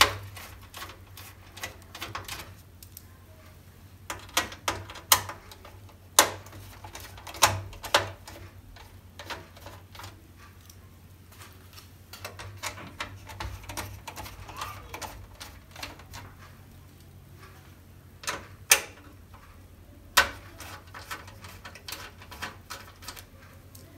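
Irregular clicks and taps of a small screwdriver working out tiny screws inside an opened LED TV, with the screws and tool knocking on the set's frame, over a low steady hum.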